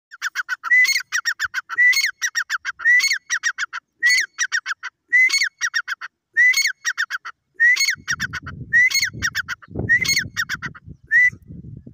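Dakhni teetar (a francolin) calling over and over, about once a second. Each phrase is a rising note followed by a quick stutter of shorter notes. From about two-thirds of the way in, a low rumbling noise runs underneath.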